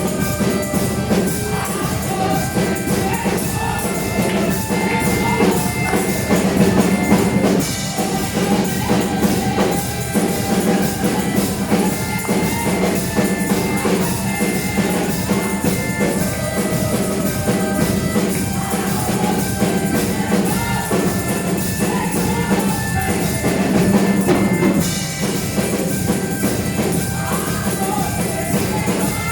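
Gospel praise music with singing, drums and tambourine.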